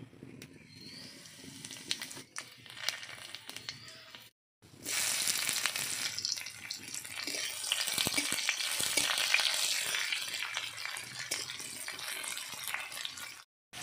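Cumin seeds crackling lightly as they drop into hot oil in a wok, then, after a short break about four seconds in, a loud steady sizzle as bay leaves and chopped onion fry in the oil: the tempering (phoron) for a Bengali fish curry. A metal spatula stirs the pan near the end.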